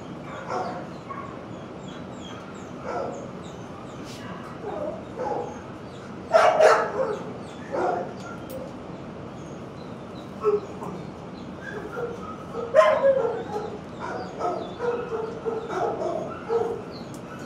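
Dogs barking off and on around a shelter kennel block, with scattered short barks and the loudest ones about six and a half and thirteen seconds in.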